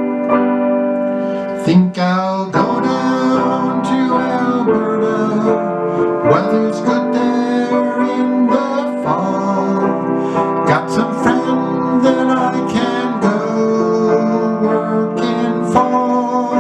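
Piano chords under a harmonica playing a slow melody, its long held notes sometimes bending in pitch.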